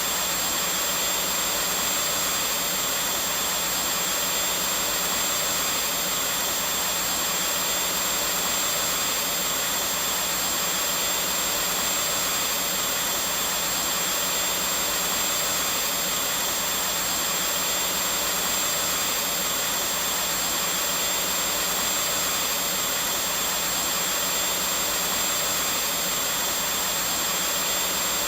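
Vacuum cleaner running continuously: a steady, even rushing noise with a thin high whine that never changes.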